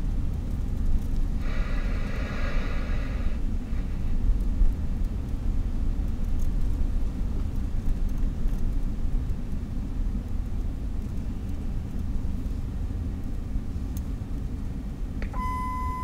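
Steady low rumble of a car driving, heard from inside the cabin. A brief buzzy burst comes about a second and a half in. Near the end a police scanner gives a steady alert beep.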